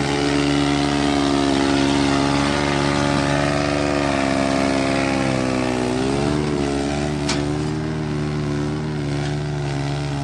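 New Holland 3630 tractors' diesel engines running under load as they haul a sugarcane-laden trolley: a steady engine note that sags and wavers about six seconds in, then settles again.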